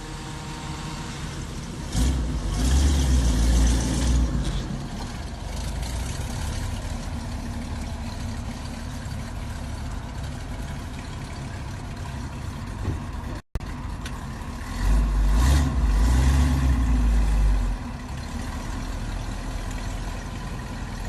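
Classic car's engine idling, revved up twice for about two seconds each, once early and again past the middle.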